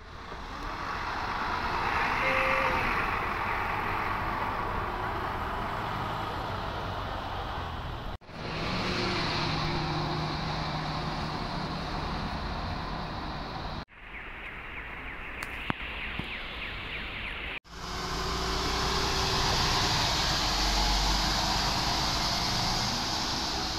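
City buses driving along a street, engine running steadily over tyre and traffic noise, in several short clips that cut off abruptly; the third clip is quieter, with one sharp click.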